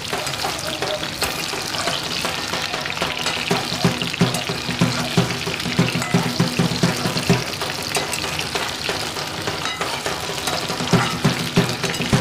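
Cauliflower, potato and pumpkin pieces frying in hot oil in a metal kadai, sizzling steadily while a metal spatula stirs and scrapes them around the pan. Background music plays underneath.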